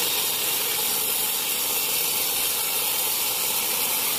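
A band sawmill blade cutting lengthwise through a teak log, making a steady, even hiss.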